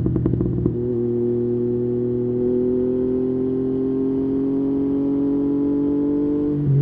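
Yamaha MT-09's three-cylinder engine and exhaust: a rapid run of popping and crackling in the first half-second or so, then a steady engine note that creeps slowly upward, shifting to a louder, lower note right at the end.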